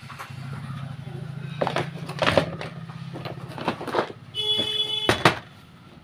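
Handling clicks and knocks as the kettle's power base, its cord and meter probes are moved about, over a steady low hum in the first half. A short beep with several tones comes about four and a half seconds in.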